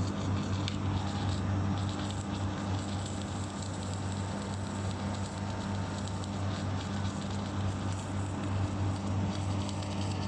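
Automatic tank-welding machine at work: a welding arc crackles and sputters steadily over the constant electrical hum of the welding power source.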